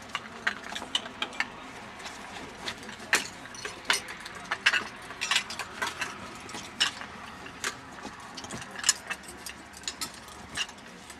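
Firefighting suction hose sections and their metal couplings being laid down and joined by hand, with irregular sharp metallic clicks and knocks a few times a second.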